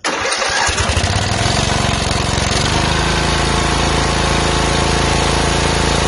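Zero-turn riding mower's overhead-valve engine starting at once and settling into a steady run. The pitch wavers for the first second or two, then holds even.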